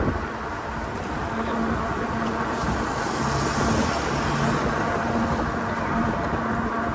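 Road traffic passing close by, with a steady engine hum and a hiss that swells and fades around the middle, over a low rumble of wind on the microphone from riding a bicycle.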